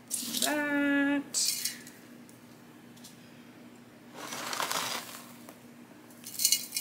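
Rocky, pumice-heavy potting mix scooped by hand and dropped into a terracotta pot, rattling and clinking in short bursts near the start, about four seconds in and near the end. Near the start a short pitched tone slides up and holds for under a second.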